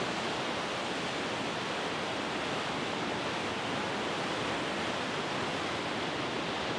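Steady rushing of a cruise ship's churning wake water.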